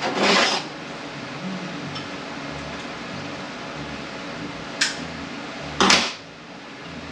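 Two short hissing bursts, each about half a second long, come at the start and about six seconds in, with a sharp click just before the second. They come from bench work on automatic-transmission parts, against a steady low shop hum.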